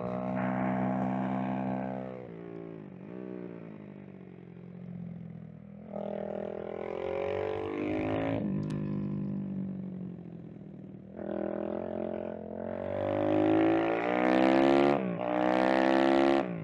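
IMR 190 pit bike's single-cylinder four-stroke engine heard from on board at speed, the revs climbing and then dropping quickly in pitch three or four times as the rider pulls through the gears and backs off. The hardest, loudest pulls come in the last few seconds.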